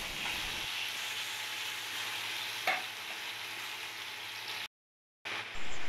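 Onion paste and sliced onions sizzling as they fry in hot oil in a frying pan, stirred with a spatula. There is a single sharp knock about two and a half seconds in, and the sound drops out briefly near the end.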